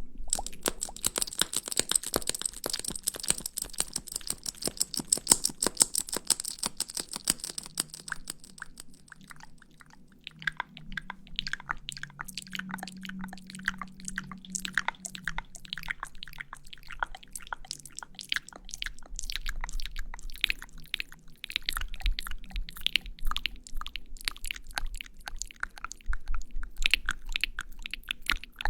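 Close-miked ASMR lipstick-application sounds: a dense run of small sticky, crackling clicks, with a hiss over them for the first several seconds and a softer patch about ten seconds in before the crackling picks up again.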